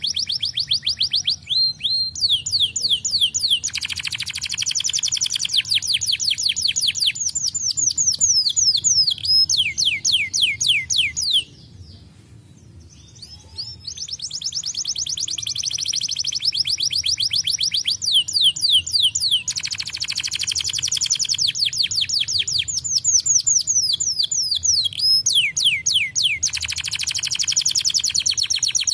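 Domestic canary singing in fast trills, each a run of rapidly repeated falling notes, switching to a new trill every second or two. There is a pause of about two seconds around twelve seconds in.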